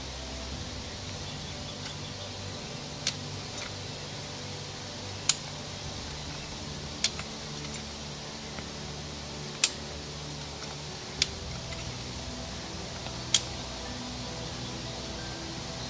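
A metal shovel clinking against buried iron: six sharp, short clinks spaced a second and a half to two and a half seconds apart, over a faint steady hiss and hum.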